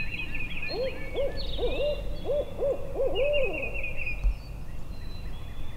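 Barred owl hooting a rhythmic series of about eight rising-and-falling notes, the last one drawn out, while small songbirds chirp and trill in quick high runs.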